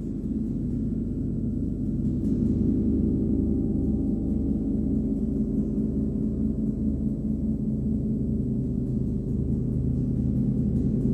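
39-inch Nepalese wind gong played with a hard rubber ball mallet, its deep, dense wash of tones swelling about two seconds in and then sustaining with a slow throbbing pulse.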